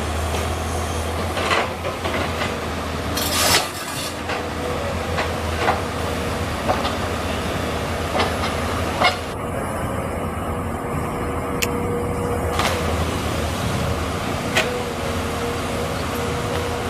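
Komatsu PC200 hydraulic excavators running steadily under working load, with a constant low engine drone and a steady tone, and scattered knocks and clanks as they dig. A short, louder noisy burst comes about three and a half seconds in.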